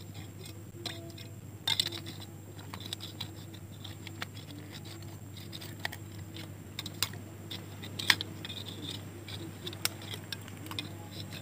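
A thin metal crab hook prodding and scraping in a water-filled rock hole, knocking against the rock and a mud crab's shell: irregular small clicks and scrapes, with a few sharper knocks.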